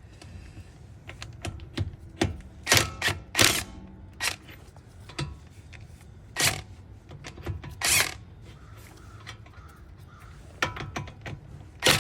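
A series of sharp clicks and clanks of tools and metal parts being handled, with four louder knocks spread through the middle.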